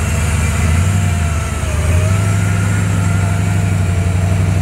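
Lowered Chevrolet Silverado pickup's engine running at low speed as the truck creeps along. The drone sags a little over a second in, then picks up and holds steady.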